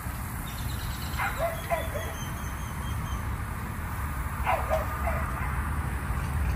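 A dog barking: a few short barks about a second in and again about three seconds later, over a steady low rumble.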